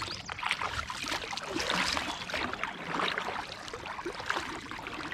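Kayak paddles dipping and splashing in lake water, with water trickling off the blades in uneven strokes.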